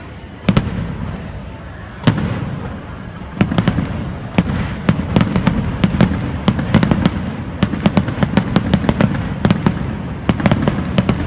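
Fireworks going off: two single bangs about half a second and two seconds in, then from about three and a half seconds a dense run of crackling reports and bangs as shells burst overhead.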